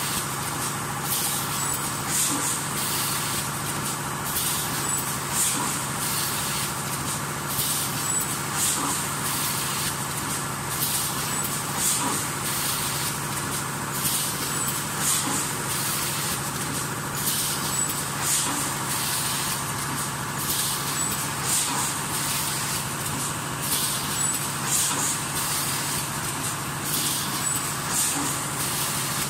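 Leno bag cutting and sewing machine running: a steady mechanical hum and clatter, with short hissing bursts every second or two as it cycles.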